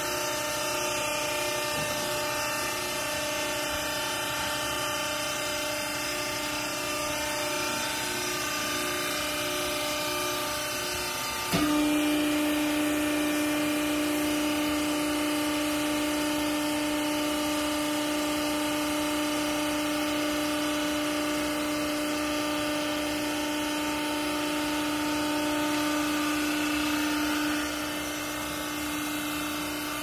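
Vertical hydraulic clothing baler's electric motor and hydraulic pump running with a steady hum. About a third of the way in the hum suddenly gets louder, as the pump comes under load driving the ram down to compress the clothes. Near the end it falls back to the lighter hum.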